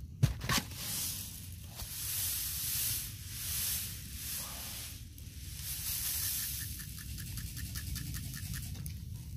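Pelleted lettuce seeds rattling and sliding in a plastic plate seeder as it is tilted and shaken, in hissy swells about once a second. Near the end comes a quick run of light ticks, about seven a second, and a couple of sharp knocks come right at the start.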